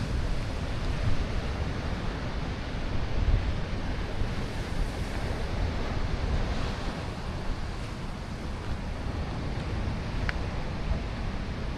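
Ocean surf washing steadily against the shore, with wind rumbling on the microphone.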